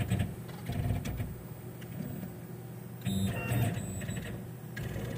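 Tormach 1100 CNC mill's axis stepper motors whirring in short jogs, with a louder move about three seconds in, as the table is jogged to touch a Haimer 3D taster off on the part's corner.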